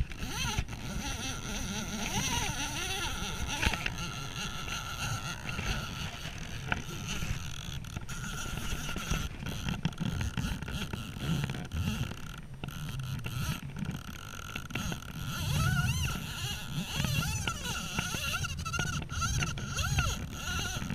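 Wind rumbling and buffeting on a body-worn action camera's microphone, uneven, with stronger gusts in the second half and a faint steady high whine over it.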